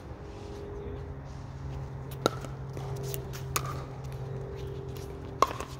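Pickleball paddles hitting a plastic pickleball during a rally: three sharp pops with a short ring, about a second and a quarter and then two seconds apart.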